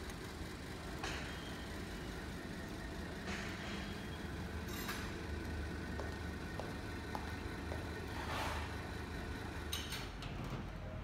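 Steady low background hum with a few faint clicks and several short rustling noises scattered through.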